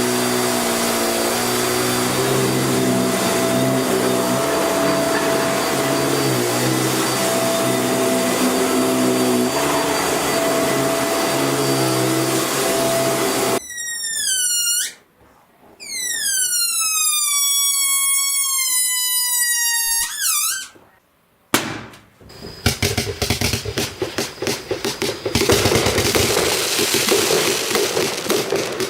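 A steady whirring motor with a hum of several fixed tones runs for about thirteen seconds and stops suddenly. A series of falling whistle-like tones with many overtones follows. From about three-quarters of the way in there is a dense run of rapid cracks and pops.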